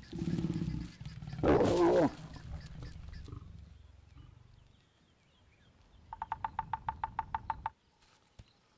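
Lions growling during mating, with a loud snarl about a second and a half in that fades away. Near the end comes a rapid, even run of about a dozen taps from a woodpecker drumming on a dead trunk.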